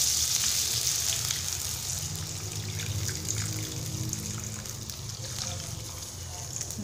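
Water poured in a steady stream from a jug into a hot wok of prawn heads frying in oil; the sizzling hiss fades away as the water covers the oil.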